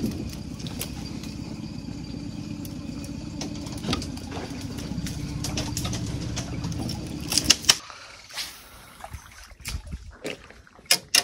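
Bow-mounted electric trolling motor running with a steady low hum, then shutting off about two-thirds of the way through. Sharp clicks and knocks are scattered throughout, the loudest just before the motor stops and near the end.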